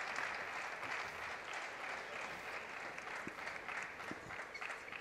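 Arena crowd applauding after a table tennis rally, easing off toward the end.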